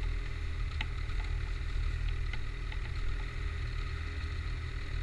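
Ski-Doo snowmobile engines idling steadily, with a deep, even rumble.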